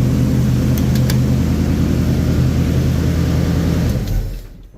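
Ford F350 pickup's engine idling steadily and quietly, the knocking 'brr, brr' gone now that fresh oil has replaced oil thinned by gasoline dilution. It is shut off about four seconds in and runs down to a stop.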